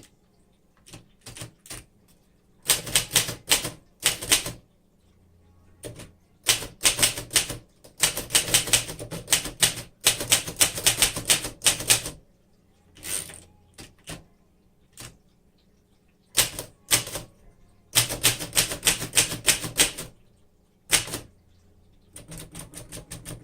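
1938 Remington Model 5 portable manual typewriter being typed on: bursts of rapid typebar strikes against the platen, with pauses between runs of keystrokes.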